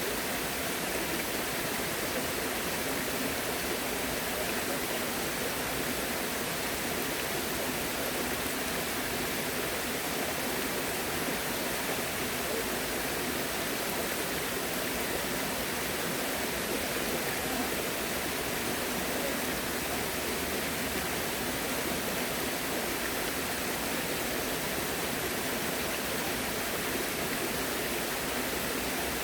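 Running water rushing steadily, an even unbroken wash of sound with no distinct splashes or other events.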